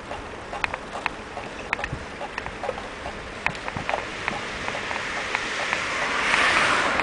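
Riding a bicycle on a smooth bike path: steady wind and rolling noise with irregular light clicks and rattles from the bike. Near the end a rush of noise swells up and fades.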